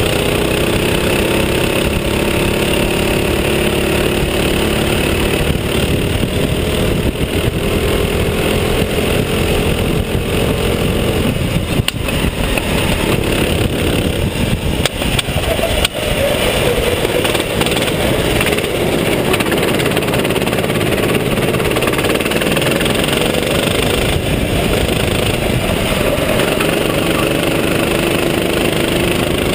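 Racing go-kart engine running hard, heard from on board the kart, its pitch sagging and then climbing again about halfway through as the driver lifts and gets back on the throttle, over a steady rushing noise.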